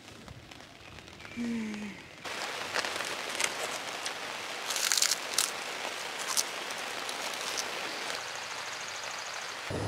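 A plastic zip-top bag crinkling in quick bursts as it is handled, over a steady hiss of light rain. A short falling hum of a voice comes about a second and a half in.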